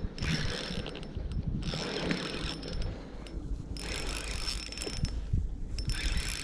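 Fishing reel being wound in on a retrieve, its gears whirring in about four spells with short pauses between.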